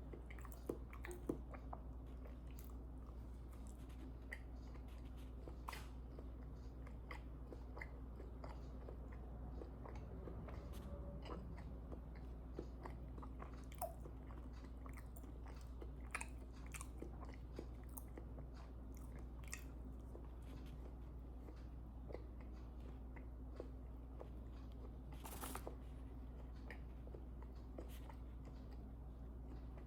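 Close-up chewing of soft fudge brownie Little Bites: wet mouth clicks and smacks scattered unevenly over a steady low hum. One longer, louder noise comes about 25 seconds in.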